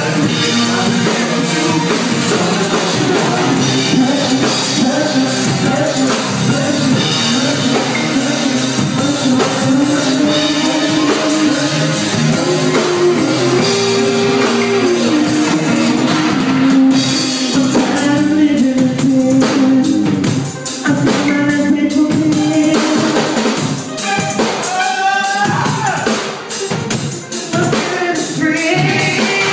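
Live band playing a song in rehearsal: keyboard with long held notes and a drum kit, with a singer on a microphone. The drum strikes come through more strongly in the second half.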